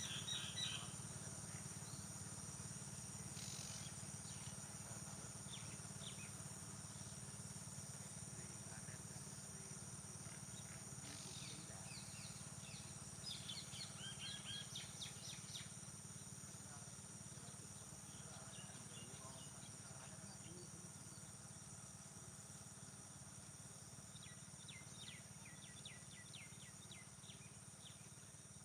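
Early-morning field ambience: a steady high insect chorus with birds calling now and then, including quick strings of short chirps, over a low steady hum.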